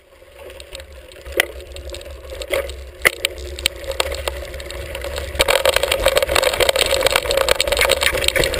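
Hardtail mountain bike ridden on a dirt singletrack, heard through a handlebar-mounted camera: tyres rolling with a steady rumble and the bike and camera mount rattling, with sharp knocks over bumps. The rattle grows louder and denser from about five seconds in.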